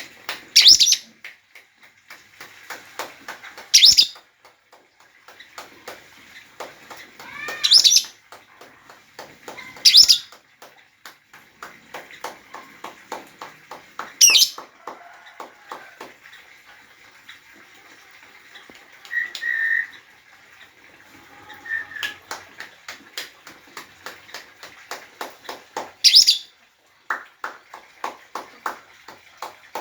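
Lovebird calling: loud, shrill screeches every few seconds, about six in all, with fast runs of short chattering chirps between them.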